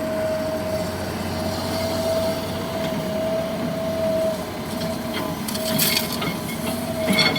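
Heavy diesel engine running steadily with a high whine over a low hum, with a few crackling knocks about two-thirds of the way in and near the end.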